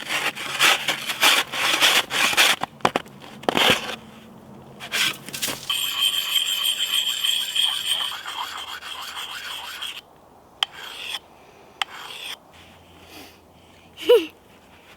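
Wood being rubbed and scraped in quick repeated strokes, then a steadier rubbing for a few seconds, followed by a few light knocks and a short falling squeak near the end.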